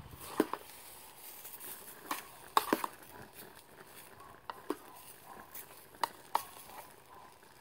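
A metal spoon stirring rice in a steel canteen cup, scraping and clinking against the cup's sides in short sharp clinks, about ten of them, some in quick pairs.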